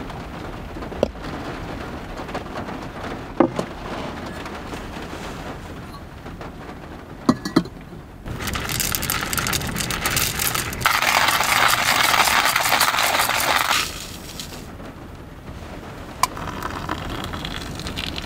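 Coffee-making sounds in a car over steady rain: a few sharp clicks and knocks, then a loud rushing noise of several seconds in the middle. Near the end comes a lighter stream of water poured from a kettle into a pour-over dripper.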